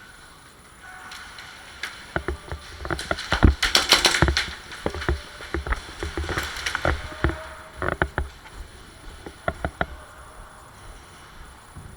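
Airsoft guns firing during close-quarters play: an irregular run of sharp cracks and knocks, densest and loudest about three to five seconds in, then thinning out to a few scattered shots near the end.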